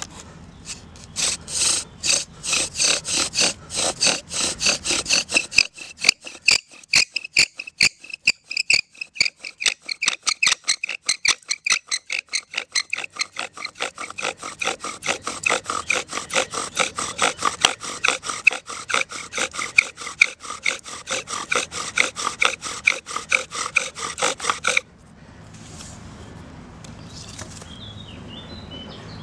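Wooden bow drill in use for friction fire: the bow is sawn back and forth in a fast, even rhythm, and the spindle rubs and squeaks in the hearth-board socket with each stroke. The strokes stop abruptly near the end.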